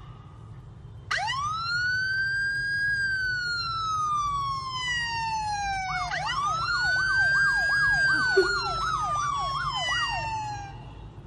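Police-style electronic siren played from a phone: a wail that rises about a second in and slowly falls, then a second rise around six seconds in with a fast yelp warbling over it, fading out near the end.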